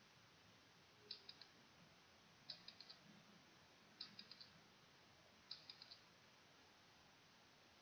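Quiz countdown-timer sound effect, faint: four short clusters of quick ticks, each cluster of three or four ticks, about a second and a half apart.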